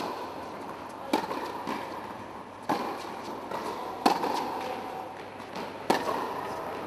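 Tennis ball being struck back and forth by racket strings in a baseline rally: four sharp pops about a second and a half apart, with fainter knocks between, each echoing in the indoor hall.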